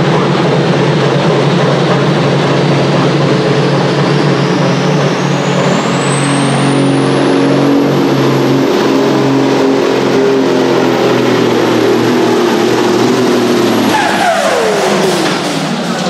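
Supersports-class pulling tractor engine running loud and steady, with a high whine that climbs over several seconds and then holds. Near the end the engine pitch falls steeply as the tractor pulls the sled.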